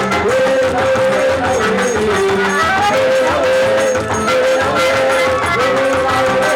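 Instrumental festa junina quadrilha music with a steady beat and a melody line of long held notes that step up and down.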